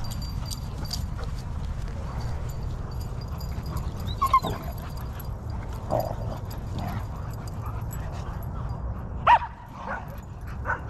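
Dogs playing, with a few short barks and yips: one about four seconds in, another near six seconds, and the loudest a little after nine seconds. A steady low rumble runs underneath.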